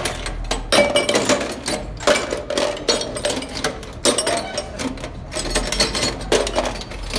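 Irregular metallic clinks and knocks, about two or three a second, from hands and a cranked steel bar working on an inline diesel injection pump held in a vise.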